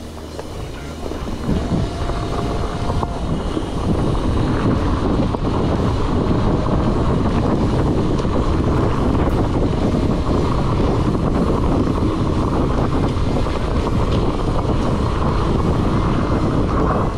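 Wind buffeting the microphone over the rattle and rolling of a mountain bike moving fast along a dirt trail. It grows louder over the first few seconds, then stays steady.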